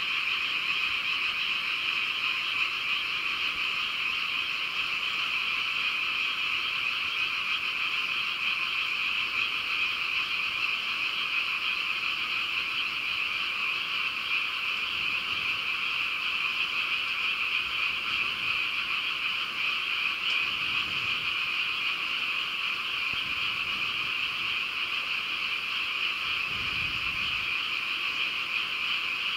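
Dense night chorus of many frogs calling at once, a steady, unbroken high-pitched trilling wash.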